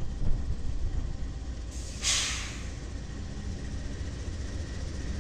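Union Pacific diesel freight locomotives rolling past with a steady low rumble, and a short burst of air hiss from the train about two seconds in.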